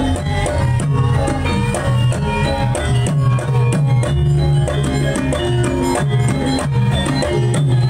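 Javanese gamelan music accompanying a Lengger dance: kendang hand drums play a busy rhythm over a melody of struck metal notes, with a strong low steady bass underneath.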